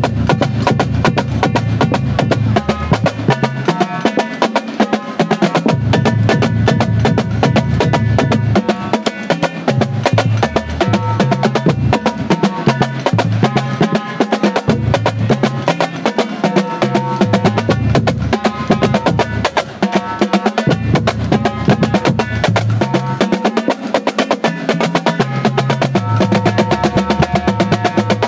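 Marching drumline playing a warm-up exercise together: snare drums, tenor drums and tuned bass drums in fast, continuous stick strokes, with the bass drums stepping between different pitches.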